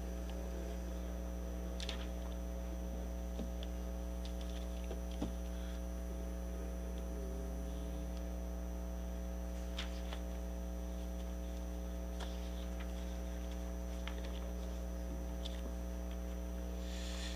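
Steady electrical mains hum with a few faint, brief clicks.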